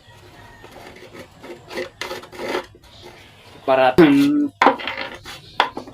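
Irregular rasping strokes of hand work rubbing across a wooden dining chair during furniture retouching, a rough scraping sound.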